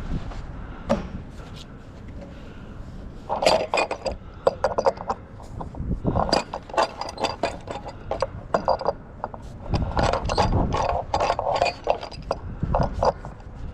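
Scrap metal being handled: a busy run of metal clinks, clanks and scrapes, quieter for the first few seconds and then coming thick and fast.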